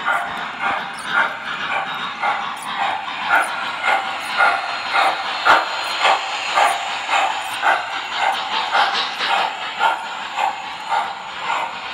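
MTH Big Boy O gauge model steam locomotive's onboard sound system chuffing steadily, about two chuffs a second, as the engine runs along the track.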